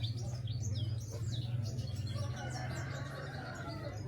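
Small birds chirping repeatedly in quick short notes, over a steady low hum.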